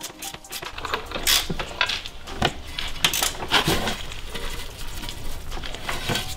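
Scattered metallic clicks and clinks of a ratchet and socket tightening the 18 mm front control arm bolt on a BMW E90's front suspension.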